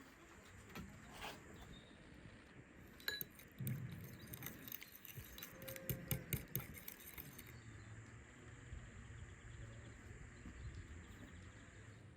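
Light clinking and rattling of kitchenware, small metal and glass knocks in a quick run from about three and a half to seven and a half seconds in, then a faint low steady hum.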